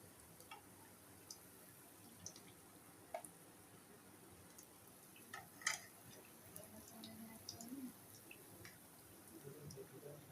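Near silence with scattered faint light clicks and taps at irregular intervals, the loudest about halfway through.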